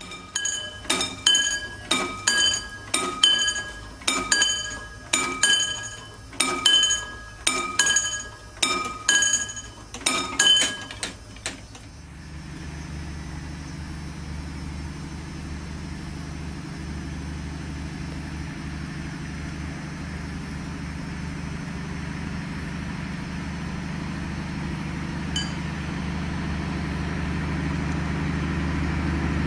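A bell struck about twice a second, each strike ringing with several clear tones, stopping about twelve seconds in. Then the low drone of a DB Class 218 diesel-hydraulic locomotive hauling a train, growing steadily louder as it approaches.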